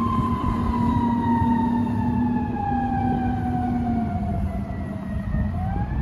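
Fire truck siren wailing, gliding slowly down in pitch and then starting to rise again near the end. A low steady air-horn tone sounds underneath and stops about two-thirds of the way in, over the rumble of the truck's engine.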